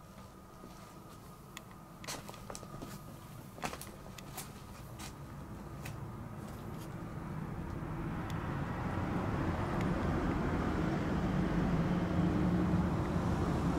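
Scattered light clicks and taps, then a low rumble that swells from about halfway in and holds steady.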